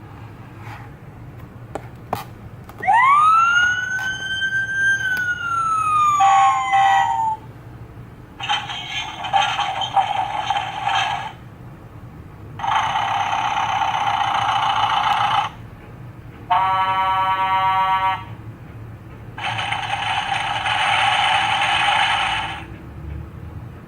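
Electronic emergency-vehicle siren: a wail that rises and then slowly falls, followed by four separate buzzing horn blasts of two to three seconds each, over a steady low rumble.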